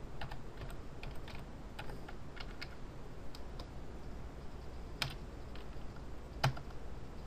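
Typing on a computer keyboard: a run of quick, light keystrokes, then two louder single clicks about five and six and a half seconds in.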